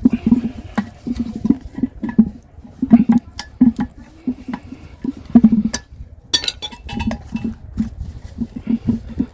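Pieces of scrap metal clanking and clinking together as they are handled and gathered up, an irregular run of knocks and rattles with a few sharper metallic clinks.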